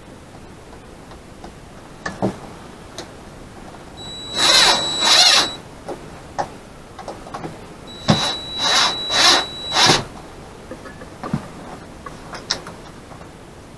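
Cordless drill driving a screw in two short runs, its motor whining in surges as the trigger is pulsed, the second run longer. Light clicks and knocks of handling the tool and hardware come between the runs.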